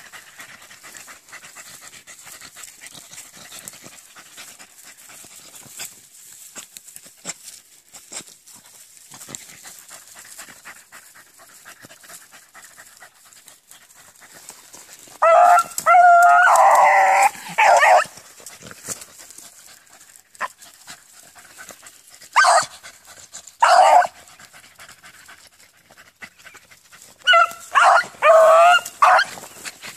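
Beagles baying in loud bursts: a run of bays about halfway through, two short ones a few seconds later, and another run near the end, over a faint rustle of brush. This is hound voice given while trailing a scent line.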